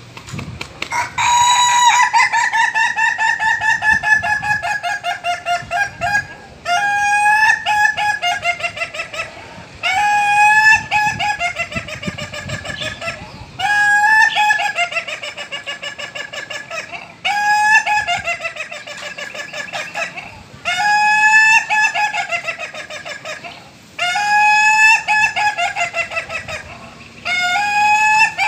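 Ayam Ketawa ("laughing chicken") rooster crowing repeatedly, about eight times. Each crow opens on a rising note and breaks into a long, fast stuttering run of notes that fades away: the breed's laughter-like crow.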